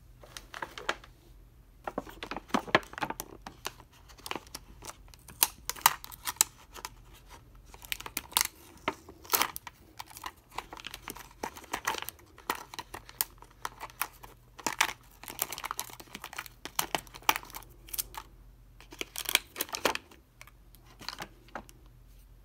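Clear plastic packaging bag crinkling in irregular bursts of crackles as hands pull it open.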